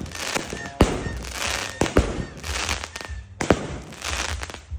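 A 25-shot firework cake firing: a rapid series of sharp bangs, roughly one every half-second to second, as shots launch and burst, with a crackling hiss from the bursting stars between them.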